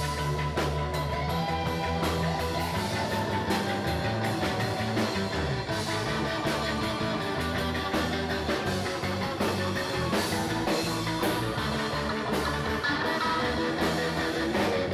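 Live band jamming in a rock style: electric bass and keyboard playing together, with frequent sharp percussive hits throughout.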